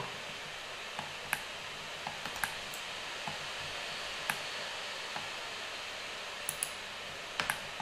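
Light, irregular clicks of a computer mouse and keyboard, about a dozen, over a steady microphone hiss.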